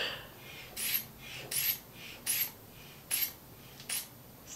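Rubber inflation bulb of a manual blood-pressure cuff being squeezed five times, about one squeeze every 0.75 s, each giving a short hiss of air. The valve is closed and the cuff is being pumped up for a palpatory estimate of systolic pressure.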